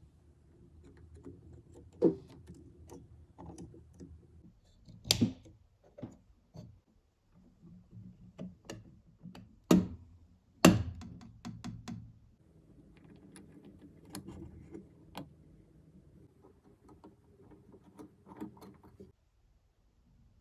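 Small parts being handled on a work surface: scattered light clicks and taps, with four sharper knocks, over a faint low hum.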